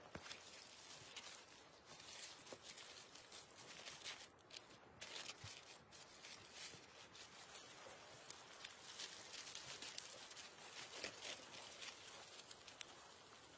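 Faint, scattered crackles and rustles at a small wood campfire being tended: wood and foil-wrapped food shifted in the coals.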